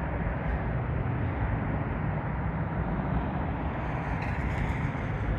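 Steady low rumble of motor vehicle traffic, with a higher hiss joining about four seconds in.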